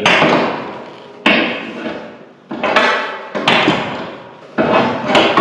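A hammer striking metal, about five blows roughly a second apart, each ringing and dying away before the next.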